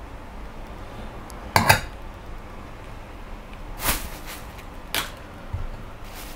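Wax-melting vessels clattering as they are knocked and set down on a wooden stand: a loud double knock about one and a half seconds in, then single knocks near four and five seconds.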